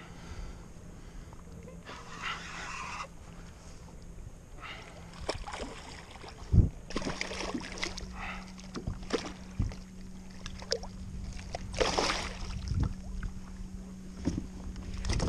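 A large redfish thrashing and splashing at the surface beside a plastic fishing kayak as it is gripped and lifted from the water, with water sloshing and knocks against the hull. The loudest sound is one sharp knock about six and a half seconds in, and a steady low hum comes in just after it.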